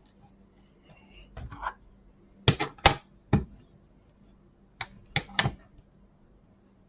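Sharp clicks and knocks of plastic parts and hand tools being handled as the blower's fan and housing are put back together, about seven in an irregular run.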